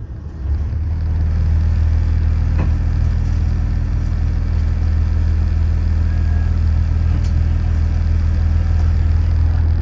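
Underfloor diesel engine of a Yufuin no Mori diesel railcar idling while the train stands, heard inside the passenger cabin. It is a steady low drone that grows louder about a second in and then holds.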